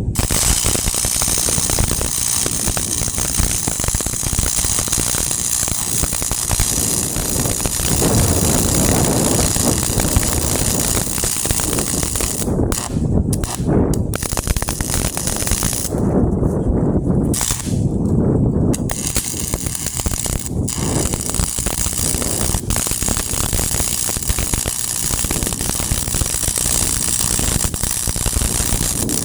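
Welding arc crackling and sputtering steadily as a patch is welded, with a few short breaks in the middle where the arc stops between beads.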